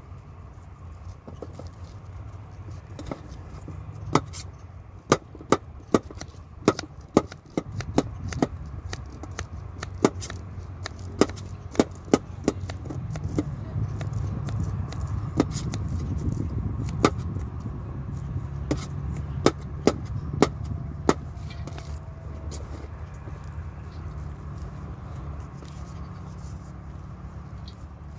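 Kitchen knife chopping celery stalks on a cutting board: sharp, irregular knocks, some in quick runs, mostly in the first two-thirds. A low steady rumble runs underneath.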